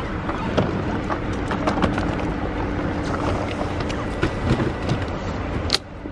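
Road traffic with a car engine's steady hum, scattered light knocks and clicks over it, and a sharp click near the end.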